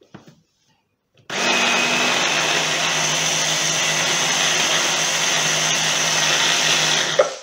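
Electric hand blender running on its chopper bowl attachment, mincing two large onions: it starts about a second in, runs steadily with a low motor hum for about six seconds, and cuts off near the end. The bowl is packed so full that the blades don't catch all of the onion.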